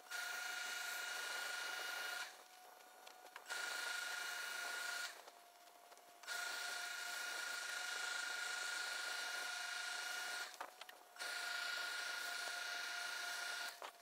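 Tailor's steam pressing equipment running in on-off spells: a steady hiss with a faint whistle that cuts off and starts again about four times.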